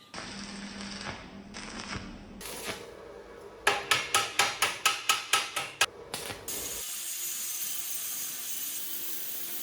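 Workshop metalwork: a run of about ten quick, sharp hammer blows, roughly four a second, then a steady rasping hiss.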